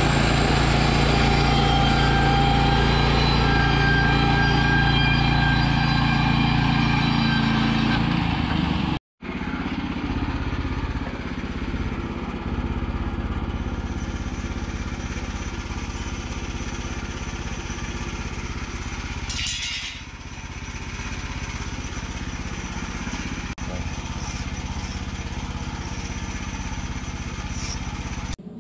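Woodland Mills HM122 portable bandsaw mill, its gasoline engine running steadily under load as the band blade cuts through a log. About nine seconds in the sound cuts, and a quieter, steady engine hum follows with a brief hiss partway through.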